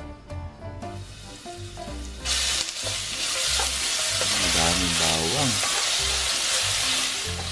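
Hot oil in a nonstick wok starts sizzling loudly about two seconds in as minced garlic frying in it is stirred with a spoon. Background music with a steady bass beat plays underneath.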